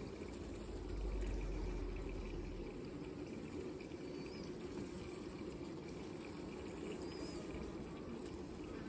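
Honeybees buzzing close up at a hive, a steady low hum, with two faint chirps about four and seven seconds in.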